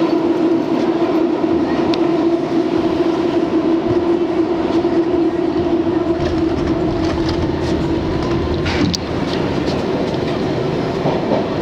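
R62 subway car running on the rails, heard from inside the car: a continuous rumble of wheels on track with a steady hum. The hum fades about eight seconds in, followed by a few sharp clicks.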